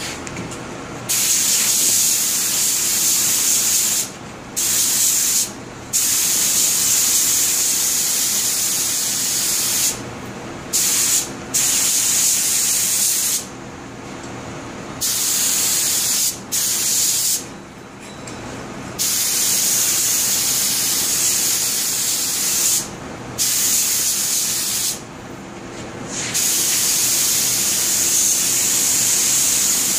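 Paint spray gun spraying white paint in a series of on-off bursts, each from about a second to several seconds long with short pauses between trigger pulls, over a steady machine hum.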